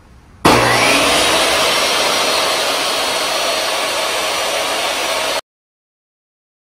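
DeWalt DW745 table saw with a soft-start module fitted, its universal motor and blade starting up with a whine that rises over the first second, then running steadily at full speed. It stops abruptly near the end.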